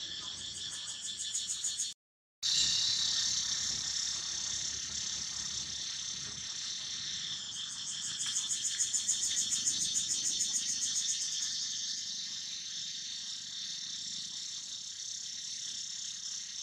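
Insect chorus: a steady high-pitched buzz with a fast pulsing trill that grows louder about eight seconds in and eases off a few seconds later. The sound cuts out completely for a moment about two seconds in.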